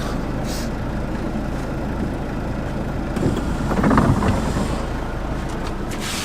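Converted bus's engine running steadily, a low even drone heard from inside the cab.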